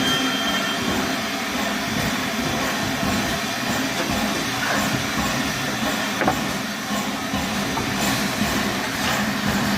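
A train running along the track: a steady rumble of rolling stock with a few scattered wheel clicks.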